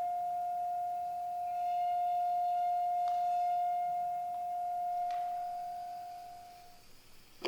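A single steady pure tone, singing-bowl-like, held from a drum-and-speaker surface setup in an experimental sound performance. It fades and stops about seven seconds in, with faint higher ringing above it and a couple of light clicks about three and five seconds in.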